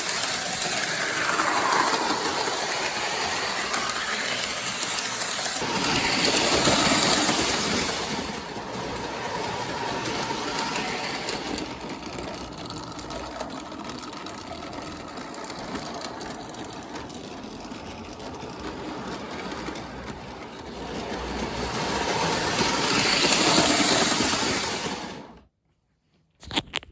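Lionel O-gauge toy train running around its track, its electric motor humming and wheels clattering on the rails, growing louder twice as it passes close by. The sound cuts off suddenly near the end.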